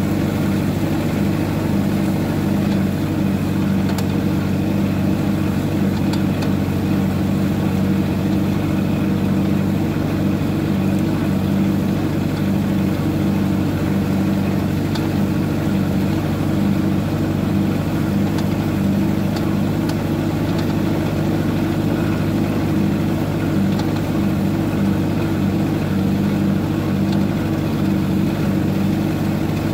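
Allis-Chalmers G tractor's rear-mounted four-cylinder gasoline engine running at a steady speed while the tractor drives along.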